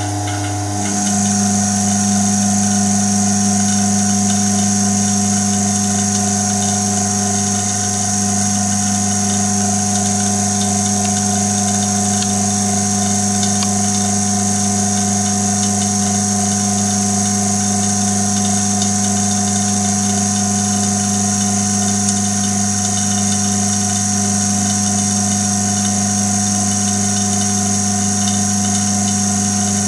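Homemade fusor's vacuum pump and high-voltage supply running: a steady hum with a thin high whine that comes in about a second in, over a fast low pulsing.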